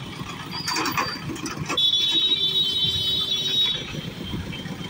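Road traffic crossing the tracks: motorcycle and truck engines running at low speed, with a few sharp knocks about a second in. About two seconds in, a high, piercing electronic alarm tone sounds steadily for nearly two seconds, then stops.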